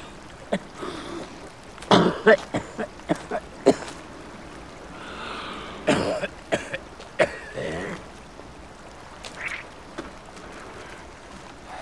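A man's wordless vocal sounds, short laughs and grunts, with scattered short knocks.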